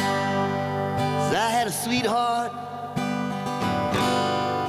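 Acoustic guitar strummed with a resonator guitar playing alongside, in an acoustic duo. The middle of the passage has notes that bend and glide in pitch.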